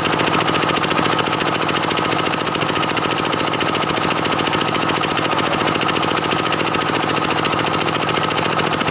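Stihl 070 two-stroke chainsaw running steadily under power as it rips a jackfruit-wood log along the grain.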